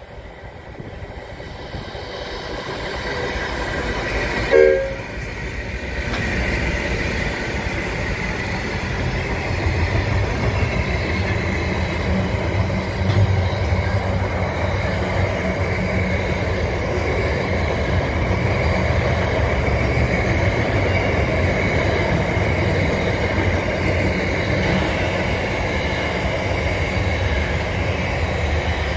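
Diesel-hauled freight train approaching, growing louder, with a short horn blast about four and a half seconds in. Then the steady rumble and clatter of double-stacked container wagons rolling past.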